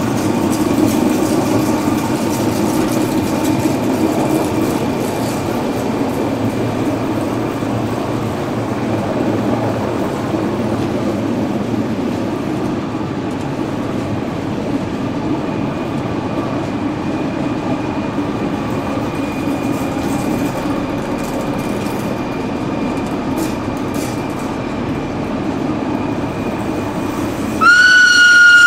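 Rhaetian Railway Capricorn electric multiple units rolling past in a steady, continuous run of wheel and running noise, with a faint high wheel squeal. About a second before the end a loud horn blast starts on one steady pitch.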